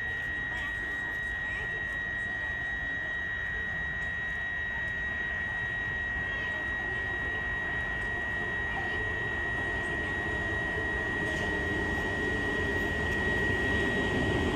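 Indian Railways EMU local train approaching, its rumble growing steadily louder, most of all in the last few seconds. A steady high-pitched whine runs throughout.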